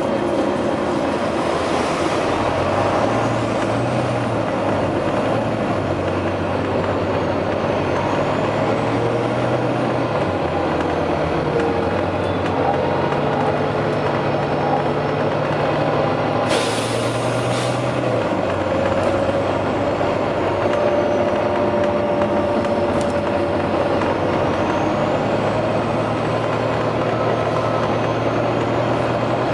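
Volvo B9TL double-decker bus's six-cylinder diesel engine working under way, its pitch stepping up and down with the gear changes. About halfway through comes a sharp hiss of air let out by the bus's air brakes.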